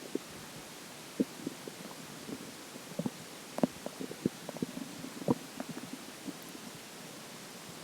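Human stomach gurgling with water inside: irregular short gurgles and pops, thickest in the middle, then a quieter stretch before the gurgling resumes.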